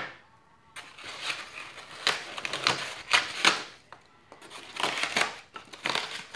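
Plastic bag rustling and crinkling around a foam model-jet fuselage, with the polystyrene packaging rubbing, as hands work it loose from its tray. The handling comes in irregular spells with short pauses between.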